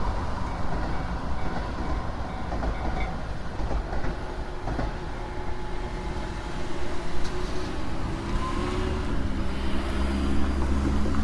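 Hachiko Line train running past, a continuous low rumble of wheels on rail.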